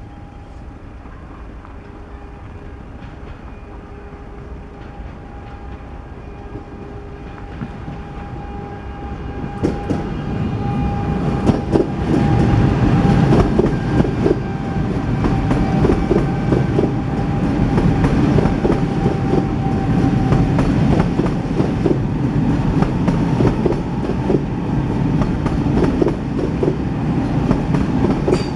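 A train approaches and passes over a railway level crossing. It gets louder over the first ten seconds with a steady tone, then its wheels clatter heavily over the rails for the rest of the time.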